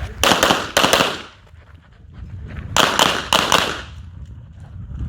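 Pistol shots fired in two quick pairs during a practical shooting stage: two shots about half a second apart near the start, then two more about half a second apart around the middle, each with a short echo.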